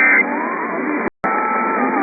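Band-limited radio audio: the end of a short Emergency Alert System digital data burst (the two-tone SAME signal) right at the start, then background music with a brief dropout about a second in.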